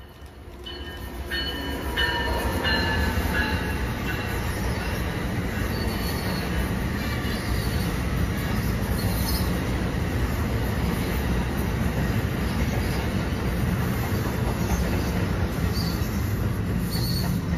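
New Jersey Transit push-pull train of bilevel coaches passing through at speed: a heavy rush and rumble of wheels and cars that swells over the first two seconds as the locomotive arrives, then holds steady as the coaches go by. Thin high ringing tones sound over the first few seconds, one sliding slightly lower.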